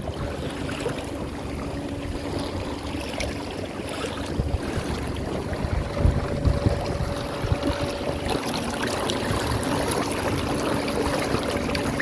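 Water rushing and splashing along an inflatable boat under way at sea, with a faint steady hum and a few louder bumps about six seconds in.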